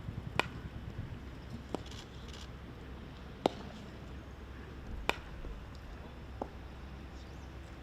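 Five sharp cracks of baseballs being struck, spaced irregularly a second or two apart and differing in loudness, over a faint steady background.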